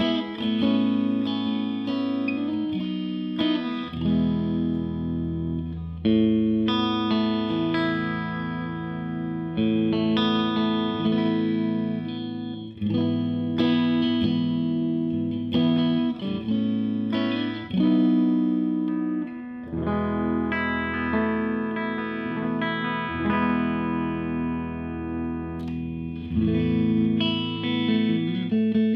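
Odlair SH 210 OW 7 Stratocaster-style electric guitar played through a Marshall JTM combo amp, unedited amp tone. It plays ringing chords and single notes, with a new chord struck about every one to two seconds.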